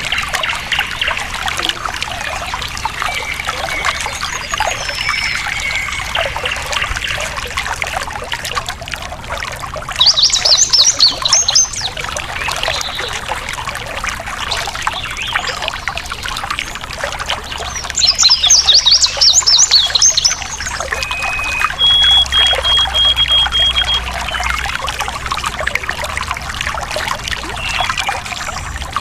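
A stream trickling and splashing steadily, with wild birds singing over it: short whistled notes, and two loud bursts of fast, high trilling about ten and eighteen seconds in.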